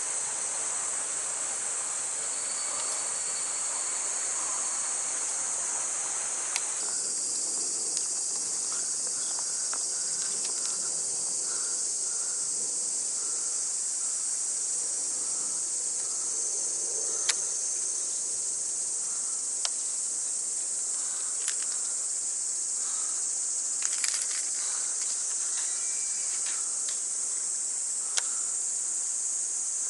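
Cicadas singing in a steady high-pitched drone, with a few faint scattered ticks.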